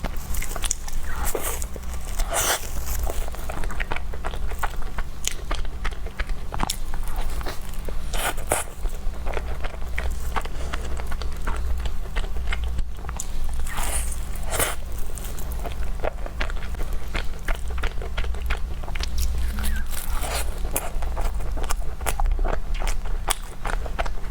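Close-miked eating sounds: a person biting and chewing a dessert, with many irregular crunches, smacks and crackles, over a steady low hum.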